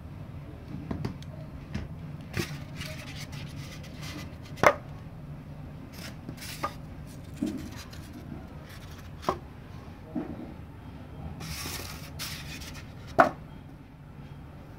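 Scattered sharp knocks and taps as things are handled on a plastic tabletop digital postal scale, two of them much louder than the rest. Sheets of paper rustle briefly about three-quarters of the way in.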